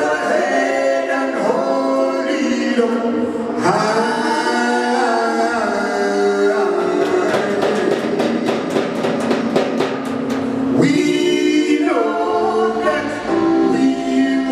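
Live reggae band with a male lead vocalist singing long, held notes over guitar, bass and drums. In the middle comes a run of quick, evenly spaced drum hits before the voice and band come back in.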